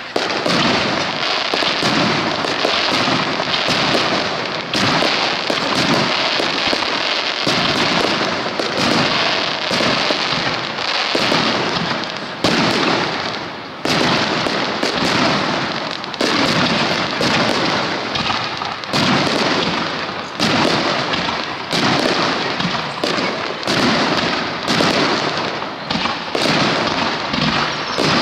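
Starmine fireworks: shells launching and bursting in quick, continuous succession, a dense barrage of sharp reports close together with no pause.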